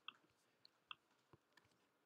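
Near silence broken by about four faint computer mouse clicks spread over two seconds.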